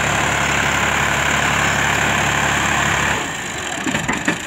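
Ghazi tractor's diesel engine running hard under load as it drags a loaded trolley through deep sand, front wheels lifted. About three seconds in, the engine sound drops off sharply to a much lower level.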